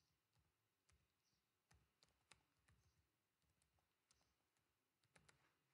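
Near silence, with very faint, irregular keyboard keystrokes as a file name is typed.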